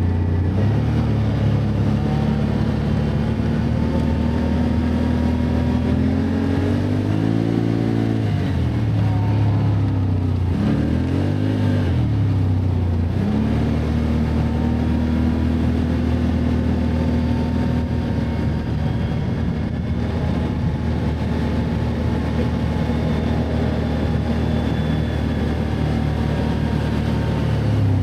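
Can-Am ATV engine running steadily under way on a trail, twice revving up and dropping back about a third of the way in before settling to a steady note again.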